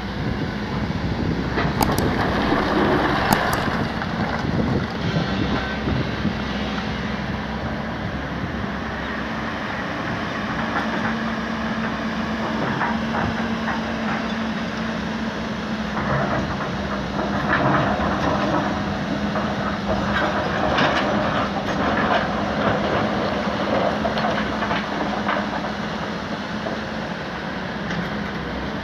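A vehicle running steadily, with a constant low hum and intermittent rattling.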